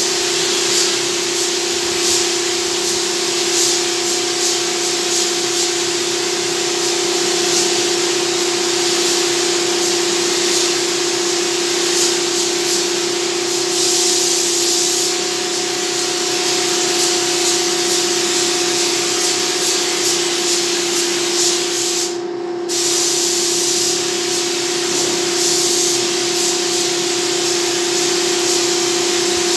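Gravity-feed spray gun hissing steadily as it sprays paint onto a CNC-cut MDF panel, with a steady hum underneath. The hiss cuts out for a moment about three-quarters of the way through.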